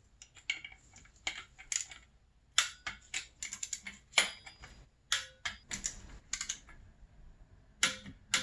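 Ratchet wrench clicking in short irregular runs with pauses between them as the stator retaining bolts are turned down and torqued to 6.5 foot-pounds.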